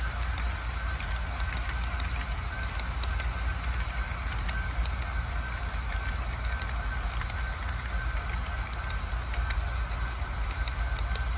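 Model freight train rolling past close by: a steady rumble of wheels on the track, with irregular sharp clicks as the wheels cross rail joints.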